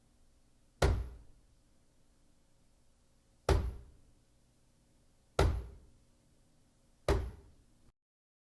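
Four single, heavy knocks on a door, spaced irregularly about one and a half to three seconds apart, each dying away quickly with a deep, boomy body.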